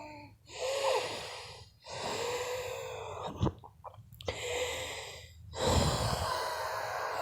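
A person wheezing from allergies: four laboured breaths in a row, each carrying a thin whistling tone through the rush of air.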